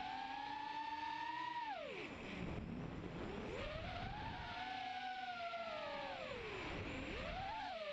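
Lumenier QAV180 mini racing quadcopter's 2300kv brushless motors and 4-inch bullnose props whining, heard from the GoPro on the frame. The pitch drops steeply about two seconds in as the throttle comes off, climbs back again, sinks about six seconds in, then briefly rises and falls near the end.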